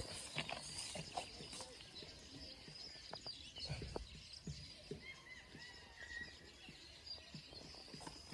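Faint birdsong: thin high chirps and twittering phrases over quiet outdoor ambience, with scattered light clicks and taps.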